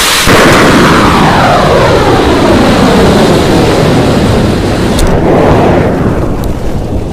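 Homemade match-head rocket motor burning with a loud, continuous rushing roar whose tone sweeps slowly up and down, with two short sharp cracks in its second half.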